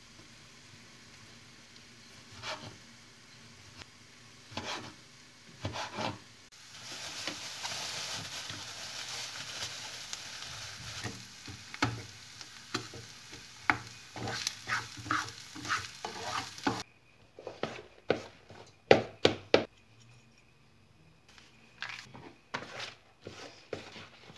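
A kitchen knife knocks a few times on a wooden chopping board as it cuts a tomato. Then diced onion and tomato paste sizzle in a frying pan with a steady hiss while a wooden spoon stirs and knocks against the pan. The sizzling cuts off suddenly, followed by several loud sharp knocks and then softer clicks of hands mixing food in a plastic bowl.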